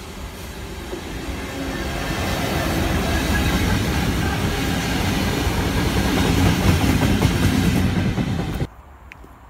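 Several EWS Class 66 diesel locomotives, coupled together, passing close by: their two-stroke V12 engines and wheels on the rails grow louder over the first few seconds, stay loud, then cut off suddenly near the end.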